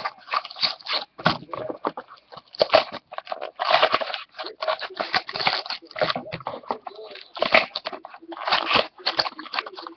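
Trading cards and their pack wrappers being handled close to the microphone: irregular crinkling, rustling and scraping as packs are opened and cards are shuffled through.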